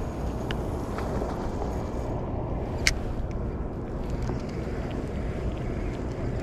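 Steady wind rumble on the microphone, with a few light clicks and one sharper click about three seconds in.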